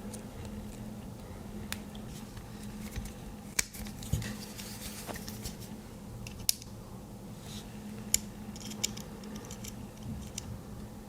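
Small hand tool picking and prying at a headphone speaker to work its tiny neodymium magnet loose: scattered sharp clicks and light scrapes of metal on plastic and metal, over a steady low hum.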